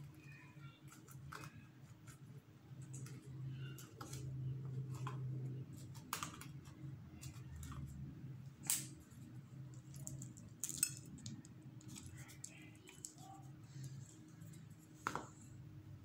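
Potting soil being crumbled by hand and packed into a glass mug, faint scattered rustles and small clicks with a few sharper taps against the glass, over a low steady hum.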